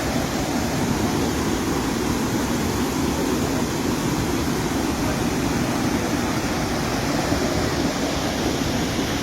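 Menal waterfall in full flow: a steady, unbroken rush of falling water, heaviest in the low range.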